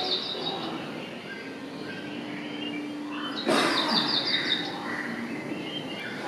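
Bird calls in a recorded wildlife soundscape: scattered chirps and whistles over a soft background hiss, with a quick run of high, repeated chirps about three and a half seconds in.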